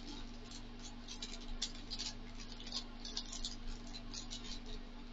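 Faint rustling and light clicking of a small plastic packet being handled and picked open in the fingers, over a steady low hum.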